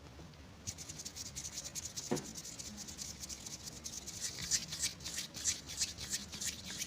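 Dry, crackly rustling and scratching made of many quick clicks, starting under a second in and growing busier toward the end, with one short falling squeak about two seconds in.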